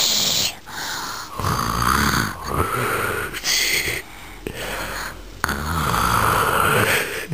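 A young girl's put-on, playful snoring: a string of about six loud snoring breaths, each a second or so long, with a softer one a little past the middle.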